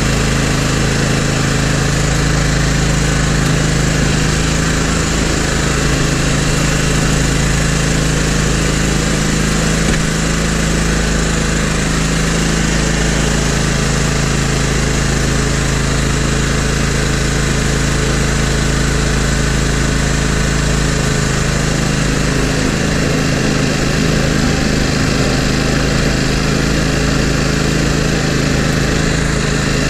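Toro GrandStand MultiForce stand-on mower's engine running steadily under load while it drives a front snow plow blade.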